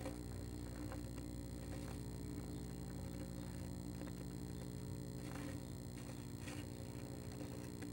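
A steady electrical hum from a nest-box camera's microphone. Over it come a few faint scratches and rustles as a northern flicker shifts on the wood shavings in the box, two of them about five and six and a half seconds in.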